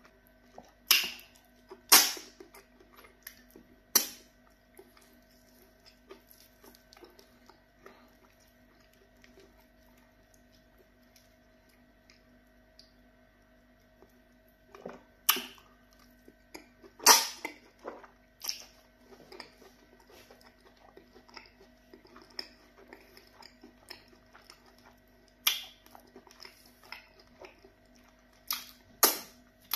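Close-up eating sounds of pounded yam fufu with okra soup eaten by hand: chewing and swallowing, broken by sharp, loud mouth smacks in clusters every several seconds. A faint steady hum runs underneath.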